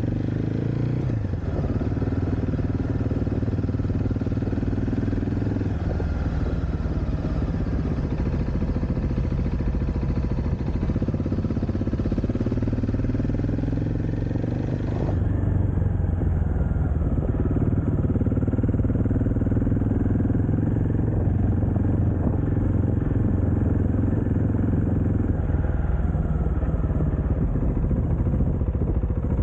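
KTM 690 SMC R supermoto's single-cylinder engine running while the bike is ridden, its pitch shifting a few times as the throttle and revs change.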